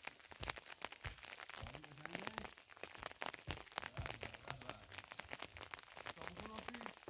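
Footsteps crunching on a loose, stony dirt path: an irregular run of sharp crunches and clicks of stones shifting underfoot, with a faint voice briefly twice.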